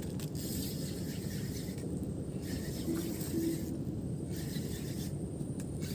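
Wind on the microphone: a steady low rumble, with gusts of hiss coming and going several times.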